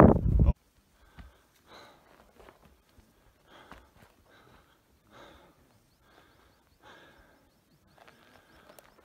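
Wind buffeting the microphone, cut off abruptly about half a second in. Then only faint, irregular short breaths, several of them a second or so apart.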